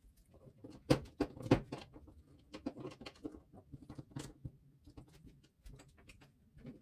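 Plastic and metal parts of a Parkside hot glue gun being handled and fitted into its plastic housing: irregular light clicks and taps, the loudest two about a second in and half a second later.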